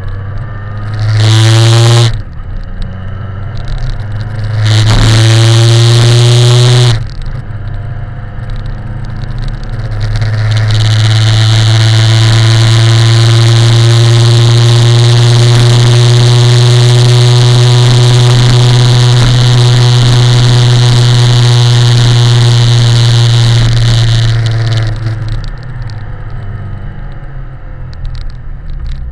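BMW K1100LT's inline-four engine under way, with rushing wind: two short bursts of acceleration, each rising in pitch, then a long run at steady high engine speed that eases off near the end.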